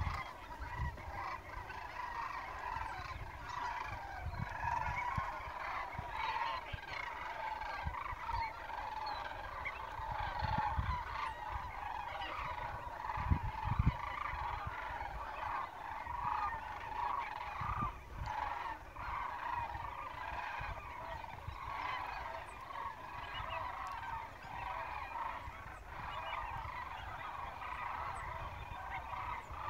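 A large flock of geese calling continuously, many overlapping honks at once, with low rumbling gusts underneath.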